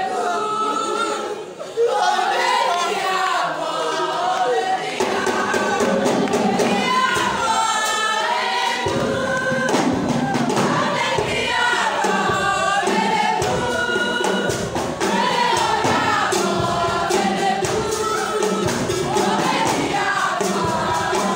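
A choir of mixed voices singing a song, with a steady low beat joining in about nine seconds in.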